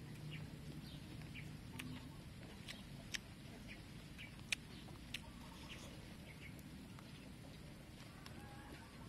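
Metal spoon clicking and scraping against a tray while scooping up omelet: a few sharp, separate clicks, the loudest about four and a half seconds in. Faint bird calls sound over a steady low background.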